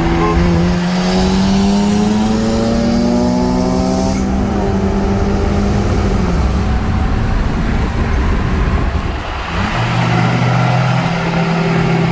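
Turbocharged Honda F20B four-cylinder engine pulling up through the revs for about four seconds, dropping sharply at a gear change, then easing off and settling to a steady lower running note near the end.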